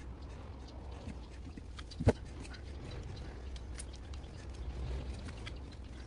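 Faint scratching, rustling and small clicks as thin wire is wound by gloved hands around glass wool packed on a motorcycle silencer's inner core, with one sharp knock about two seconds in.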